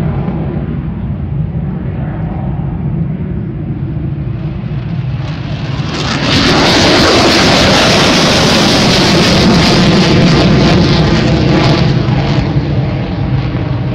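F-35 fighter jet's single Pratt & Whitney F135 turbofan on take-off and a steep climb. A steady low rumble jumps about six seconds in to a loud crackling roar as the jet passes, then eases slightly near the end.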